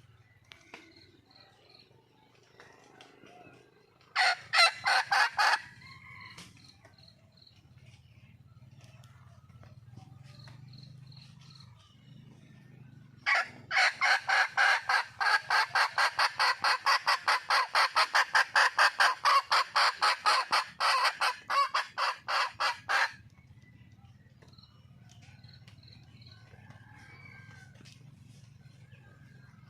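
Red junglefowl hen calling for a mate: a short run of rapid, evenly spaced notes about four seconds in, then a long run of about four notes a second lasting some ten seconds. Faint bird chirps sound in the gaps.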